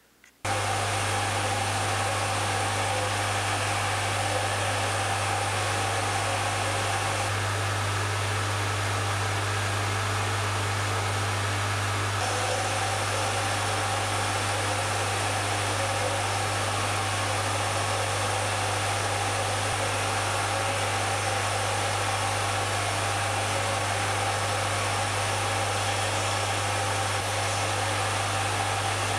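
Electric motor and belt-driven cutter spindle of a wheel-cutting setup on a Schaublin 102 lathe, running steadily with a low hum while cutting the teeth of a brass clock wheel. The tone shifts slightly about seven and twelve seconds in.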